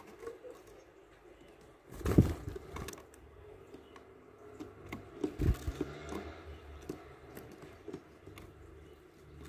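Tits feeding at a wooden bird feeder: light irregular taps and scratches of beaks pecking at a net of peanuts and claws on the wooden floor, with a stronger tap about two seconds in and a run of taps past the middle.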